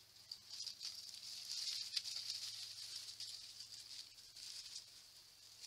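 A steady high chorus of night insects, a thin pulsing trill, with a few faint ticks.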